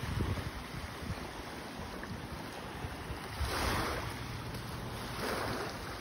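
Small waves washing onto a sandy beach, with wind rumbling on the phone's microphone. The wash swells twice, about three and a half and five seconds in.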